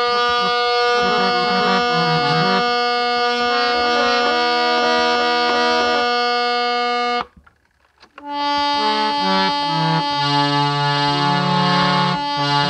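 Teak-wood harmonium with old Palitana bass and male reeds, played on the keys while its stops are tried. A held drone note sounds under a short melody. After a pause of about a second past the middle, playing resumes with lower bass notes sounding.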